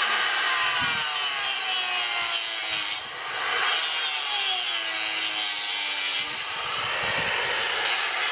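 Corded handheld power carving tool cutting into a large wooden pole, with the motor's pitch repeatedly sagging as it bites into the wood.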